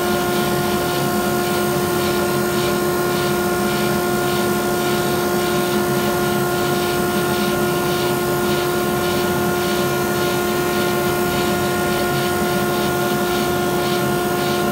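Grizzly G0458Z 18-inch open-end drum sander and its dust collector running steadily while a painted pine board feeds through on the conveyor at slow speed: an even machine noise with a steady whine over it.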